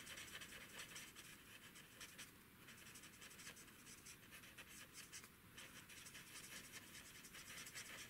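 Faint scratching of an alcohol marker's tip stroking over cardstock while colouring, in many short strokes.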